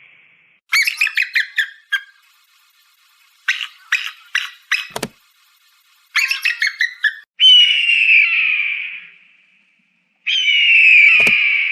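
Eagle calls: three bursts of rapid, high chittering notes, then two long screams that fall slightly in pitch. A short thump sounds about five seconds in and again near the end.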